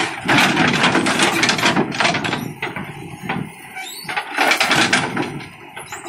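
JCB 3DX backhoe loader's diesel engine running under load while the backhoe arm works, the noise surging louder at the start and again near the end.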